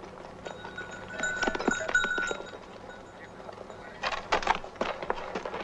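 Boots scuffing and crunching on stony ground, a quick run of footsteps about four seconds in. Earlier, from about half a second in, a high thin ringing tone holds for about two seconds over light clicks.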